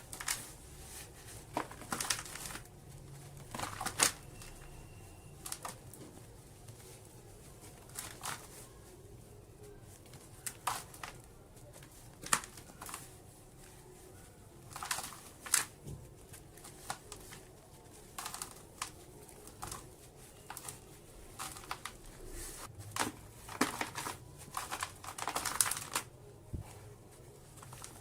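Soft dirt slabs crumbling, in short irregular crunchy crackles every second or so with brief quiet gaps between.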